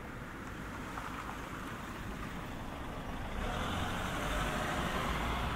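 A motor vehicle going by, its engine rumble and tyre noise swelling about three and a half seconds in.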